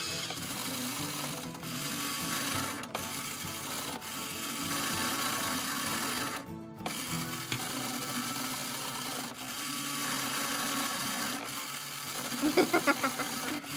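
Music with a simple stepping melody, over the whir of a toy claw machine's motors moving the claw. The music breaks off briefly about halfway through.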